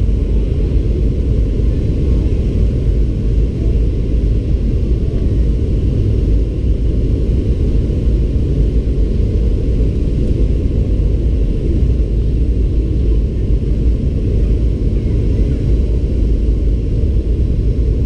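Steady low rumble inside the cabin of a Boeing 737-800 on final approach: its CFM56 turbofan engines and the airflow, heard from a seat over the wing.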